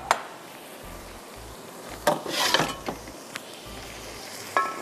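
Metal cookware knocking and clattering as a tawa griddle is set on the burner beneath a karahi of pulao, in a knock just after the start, a run of clatters about two seconds in, and a short ringing clank near the end. Under it runs a steady sizzle of the pan cooking.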